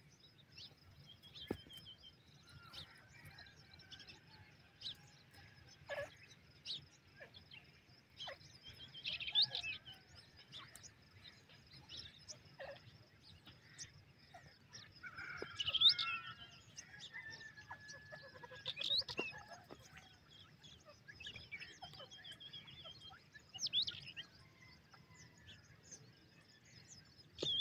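Partridges (teetar) calling: scattered soft chirps and a sharp, quickly rising high call every few seconds.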